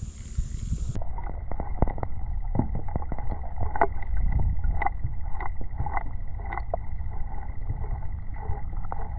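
River water heard from a camera held under the surface: a muffled low rumble of the current with many scattered clicks and ticks, and a faint steady high tone. The sound turns muffled about a second in, as the camera goes under.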